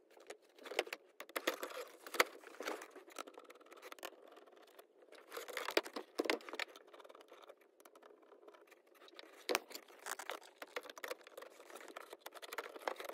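A 1980 Camaro's center console being slid back into place and fitted by hand: irregular scraping, rattling and clicks, with a few sharper knocks.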